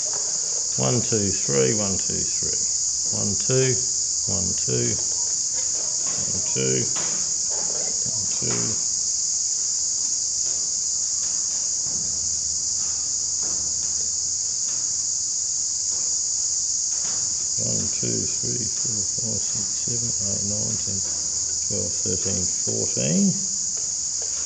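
A steady, high-pitched insect chorus that does not let up, with a man's low voice muttering at times underneath it.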